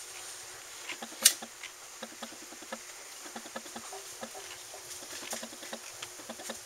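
Scattered light clicks and taps at an irregular pace, with one sharper, louder click about a second in.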